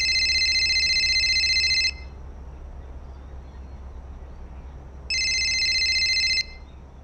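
Smartphone ringtone, a rapid trilling ring, sounding for about two seconds, pausing, then ringing again about five seconds in for a second and a half.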